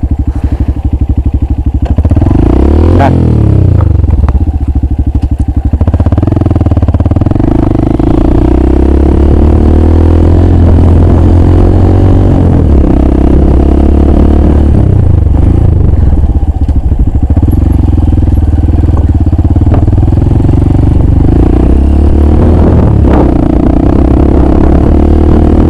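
Dirt bike's engine running hard as it is ridden at speed along a dirt track, its revs rising and falling.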